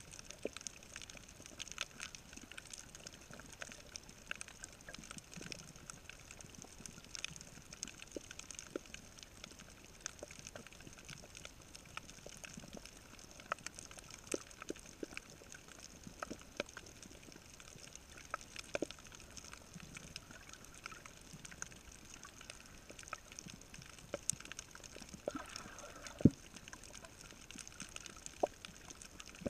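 Underwater coral-reef sound through a GoPro's waterproof housing: scattered sharp clicks and pops, the crackle of snapping shrimp, over a faint steady hiss. One louder knock comes near the end.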